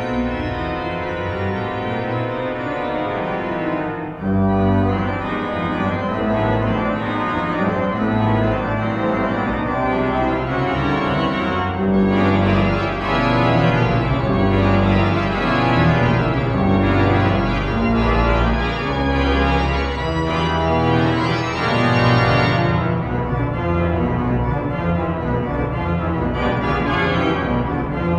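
Pipe organ played on manuals and pedals: fast, rhythmic chords over a bass line. About four seconds in, deep pedal notes come in and the sound gets louder, staying full to the end.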